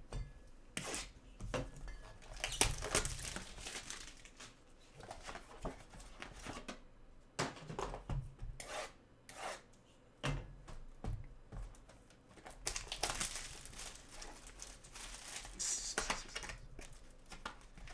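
Trading card packs and cards being handled: wrapper crinkling and tearing, with rustling and occasional clicks from cards being sorted.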